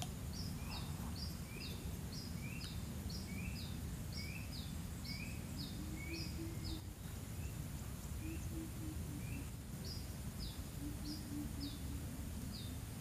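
A bird calling over and over, each call a quick high falling note with a lower chirp, about once a second, breaking off for a few seconds around the middle before starting again, over a steady low background rumble.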